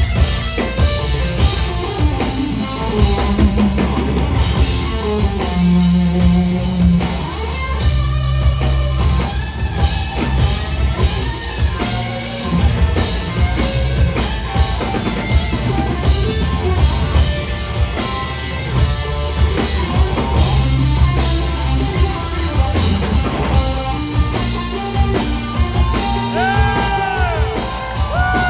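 Live blues-rock band playing loud: drum kit, electric guitar and bass. Near the end a few high notes bend up and fall away.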